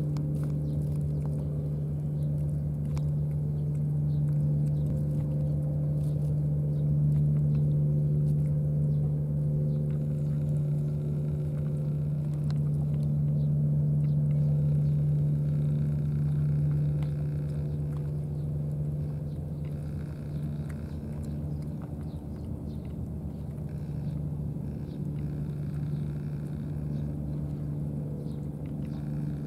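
A steady low engine hum, louder for the first half and easing off after about seventeen seconds. Over it come faint small clicks of cats chewing and licking wet food from foam trays.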